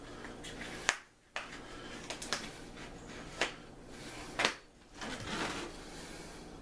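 A package of chicken breasts being opened by hand: a few sharp clicks and crackles of packaging, with a short rustle about five seconds in.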